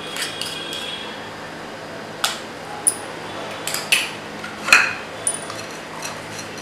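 A spoon, a small container and the lid of a stainless-steel mixer-grinder jar clinking and knocking against the jar as it is filled and closed: several separate sharp clinks, the loudest about three quarters of the way through.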